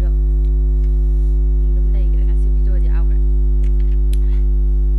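Loud, steady electrical mains hum with a stack of steady overtones, drowning out the recording: a recording fault. Faint clicks and a faint voice sound underneath it.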